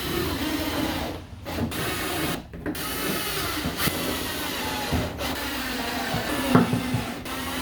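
Power drill running, boring relief holes in hollow playset tubes, with two brief stops about a second and two and a half seconds in.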